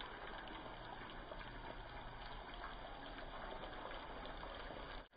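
Cooking oil poured in a thin stream from a plastic bottle into a wok of chopped vegetables, a faint, steady trickle of liquid.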